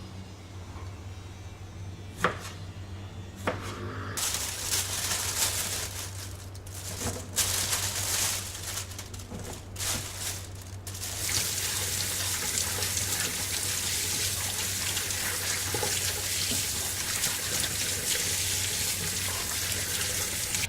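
Water tap running into a sink. After two sharp knocks, the water splashes on and off for several seconds, then runs in a steady stream.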